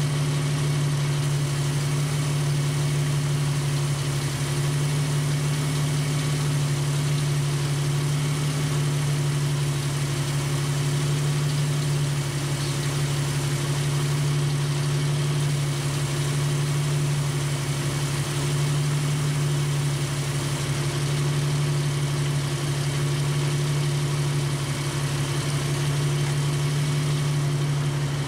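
Jeep Wrangler YJ engine idling steadily at about 800 RPM, driving a converted Sanden AC compressor that supplies onboard air to fill a tire.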